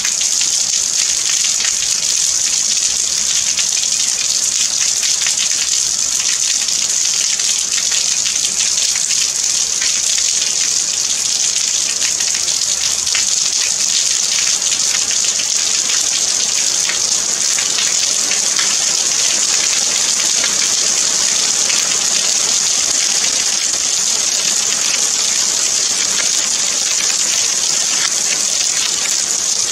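Steady rain: a bright, even hiss of falling rain with a fine, dense patter of drops.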